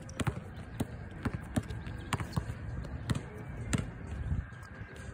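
A basketball being dribbled on a concrete court: a string of sharp, irregularly spaced bounces, about two a second.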